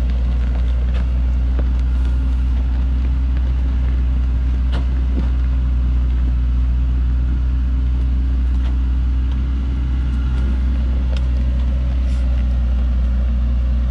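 Engine of a truck loaded with acacia logs running steadily under load as it crawls up a muddy dirt slope, a deep, even rumble with a few small knocks.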